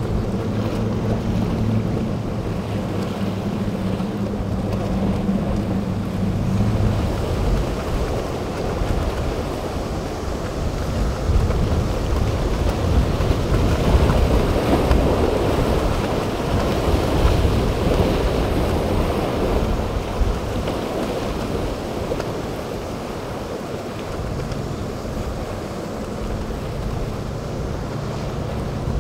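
Triple outboard engines of a center-console boat running steadily, with wind buffeting the microphone and waves breaking. After about seven seconds the engine hum sinks under the wind and surf, and a boat engine's hum returns faintly near the end.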